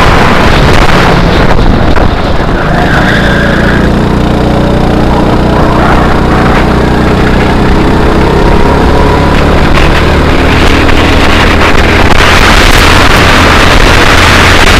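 Go-kart engine running under throttle as the kart laps the track, heard from the driver's seat, with heavy wind buffeting on the microphone. The engine note rises and falls with the throttle, and the wind noise grows louder near the end.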